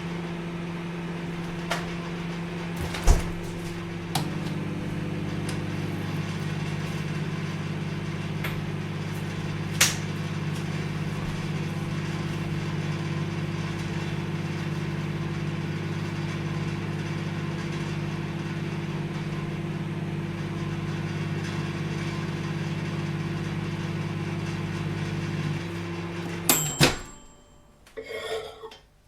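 Microwave oven running: a steady hum and whir with a few light clicks, its tone shifting slightly about four seconds in. Near the end it cuts off with a couple of loud clicks.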